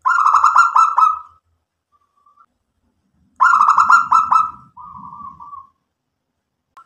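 Zebra dove (local perkutut) cooing: a phrase of rapid staccato coo notes lasting about a second, then a second phrase about three seconds later that trails off into a softer drawn-out note.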